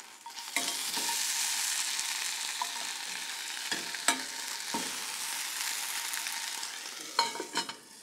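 Chicken pieces sizzling steadily as they fry in their own fat in a Rena Ware pan with no added oil. The sizzle grows louder about half a second in, and a few light knocks and scrapes of a utensil on the pan come as the pieces are turned.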